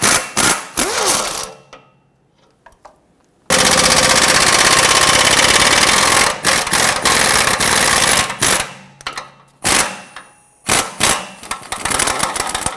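A power wrench running in rapid rattling bursts, spinning the 15 mm nuts off the exhaust manifold studs at the pipe flange. Short bursts at the start, a pause, one long run of about three seconds, then a series of shorter bursts.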